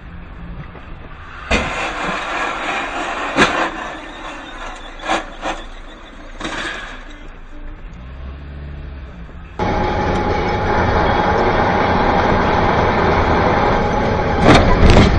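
Road and engine noise heard inside a moving car through a dashboard camera's microphone, with several sharp knocks. The noise gets louder and steadier about ten seconds in, and a loud knock comes near the end.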